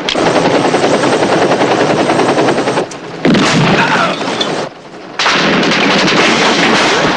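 Automatic gunfire in three long, rapid bursts: the first runs about three seconds, then two more follow after short breaks.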